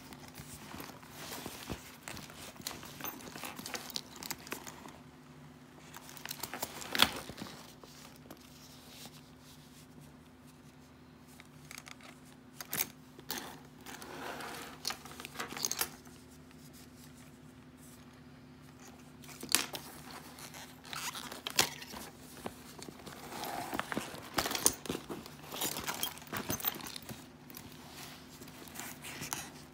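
A cotton-canvas diaper bag being handled: fabric rustling and scraping, broken by scattered clicks and knocks, with a sharp click about seven seconds in. A faint steady hum runs under it.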